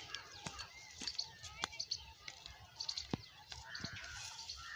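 Small birds chirping in short, repeated high calls, with a brief trill a little before the end, over scattered sharp clicks.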